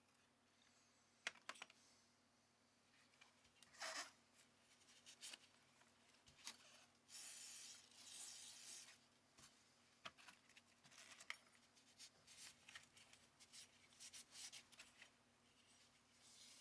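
Faint clicks, scrapes and rustles of small carburettor parts being handled on a bench, with a couple of short hissing noises about halfway through.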